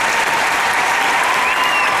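Audience applauding steadily, with a brief high whistle near the end.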